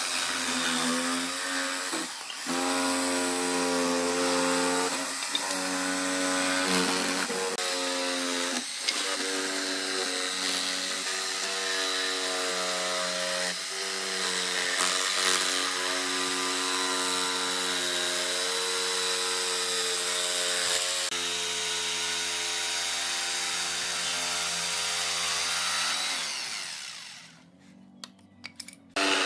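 An electric power tool running steadily, its hum shifting slightly and dipping briefly every few seconds as it works wood. It winds down about 27 seconds in and starts again right at the end.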